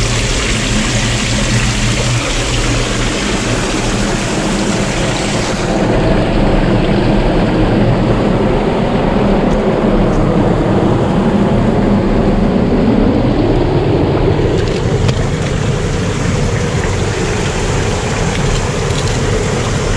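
Water sloshing and splashing around an action camera held at the waterline, over the steady hum of a boat motor. For several seconds in the middle the sound goes dull while the camera is under water, and a motor's pitch slowly rises and falls.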